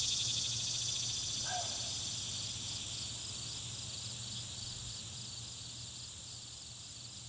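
A steady, high-pitched chorus of insects, pulsing about twice a second, with a faint low hum underneath.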